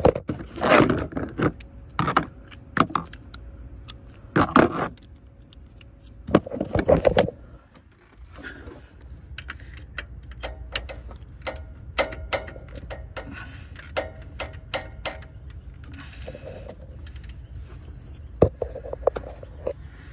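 Metal clinks, knocks and clicks of a hand tool and 10 mm bolts as an alternator's mounting bolts are fitted. There are a few louder clattering bursts in the first third, then lighter, quicker clicking.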